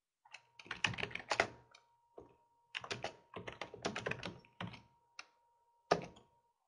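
Typing on a computer keyboard in quick runs of keystrokes with short pauses between, as a short chat message is typed, ending with a single sharper keystroke near the end.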